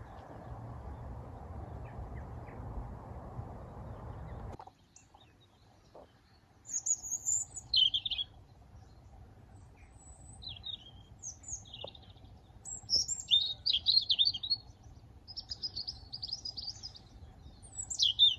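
Small birds chirping in quick, high, repeated calls through the second half. They follow a steady rushing noise that cuts off abruptly about four and a half seconds in.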